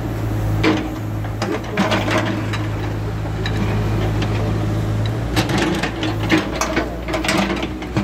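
New Holland backhoe loader's diesel engine running steadily while its bucket digs into soil and concrete rubble, with the scraping and clattering of stones and clods coming in several bunches, thickest in the second half.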